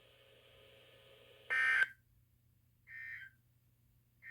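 EAS end-of-message data bursts from NOAA Weather Radio: short buzzing digital tones, the first about a second and a half in and the loudest, then two more about a second apart, signalling the end of the warning message.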